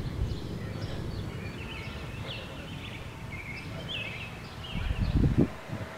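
Birds chirping and calling in short phrases over a steady low rumble, with a few louder low thumps about five seconds in.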